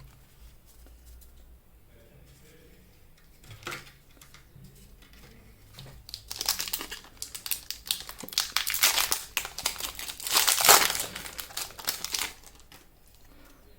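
Foil wrapper of a Pokémon trading card booster pack crinkling and tearing as it is opened, mostly in the second half, after a short rustle about four seconds in.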